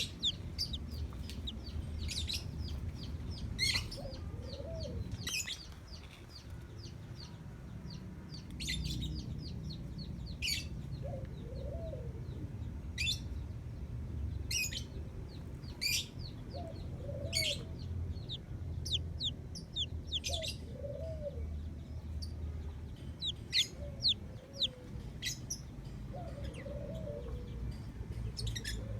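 Chickens: many short, high chick peeps, quicker and more frequent in the second half, with a short low clucking call every couple of seconds, over a steady low rumble.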